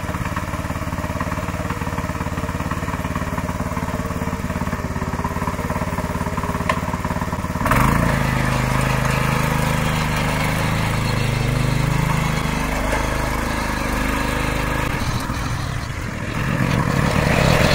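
A walk-behind power tiller's small engine running steadily. About eight seconds in the sound turns suddenly louder and deeper, its pitch wavering, and it dips briefly and rises again near the end.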